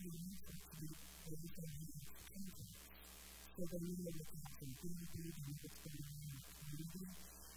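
A woman speaking, her voice muffled and unclear, over a steady electrical mains hum.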